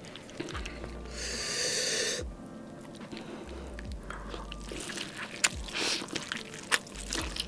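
Close-miked eating sounds from biting into a sauce-glazed tomahawk steak. A loud breathy hiss lasting about a second comes early on, followed by wet mouth clicks and smacks of biting and chewing.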